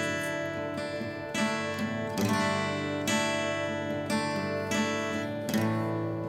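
Background music: acoustic guitar strummed chords at an easy, even pace, the last chord left ringing near the end.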